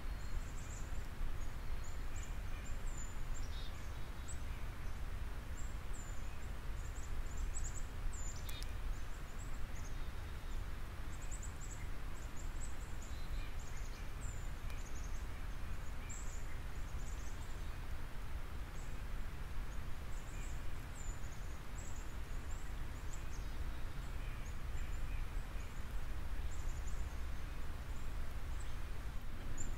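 Steady low background rumble with small birds chirping faintly and intermittently high above it, and a single sharp click about eight seconds in.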